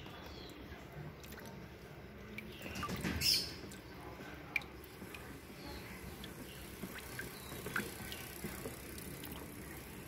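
Water dripping and lightly splashing in a shallow plastic tub of musk turtles, with a brief swell of sloshing about three seconds in and a few light clicks.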